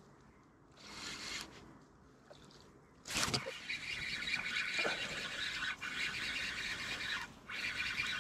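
A spinning reel is cranked fast from about three seconds in, giving a steady gear whir with two brief pauses in the winding, while the rod is bent under a hooked fish. Before that there is near silence.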